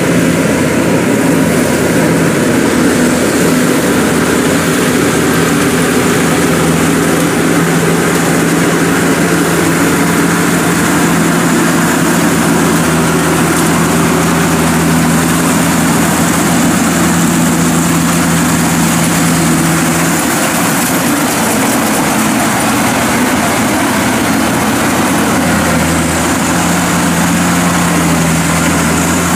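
Zoomlion EH100 tracked rice combine harvester running under load as it cuts and threshes rice: its diesel engine and threshing machinery give a loud, steady, dense running sound. The steady hum eases a little about two-thirds of the way through and comes back near the end.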